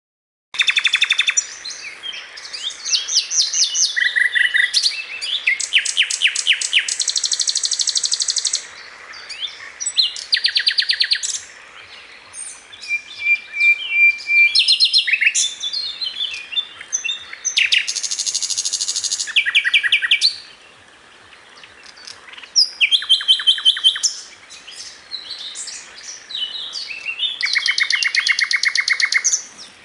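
Bird song: a run of varied high-pitched phrases, each a fast trill or a string of rapid repeated chirps lasting one to three seconds, with short pauses between them.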